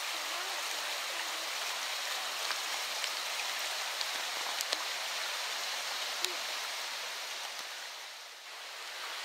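Storm-swollen, muddy river in flood, rushing over stones with a steady hiss of white water. A few faint clicks sound in it, and it briefly fades about eight seconds in.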